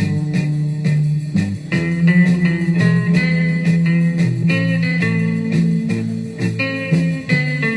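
Music: a guitar tune with plucked notes in a blues style and a steady rhythm.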